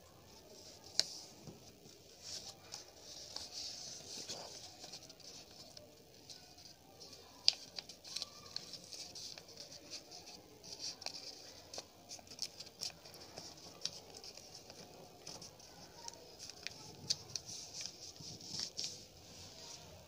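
Sheet of coloured printer paper rustling and crinkling as it is folded and creased by hand into an origami flapping bird, with scattered sharp snaps of the paper, the loudest about a second in and about seven and a half seconds in.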